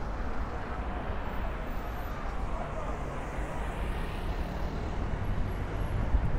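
Steady city road traffic noise: a continuous rumble of passing vehicles.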